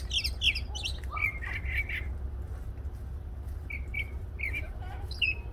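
A songbird singing: a quick run of high, down-slurred notes, then a short harsher phrase, a pause of about a second, and a few short repeated notes near the end. A low steady rumble runs underneath.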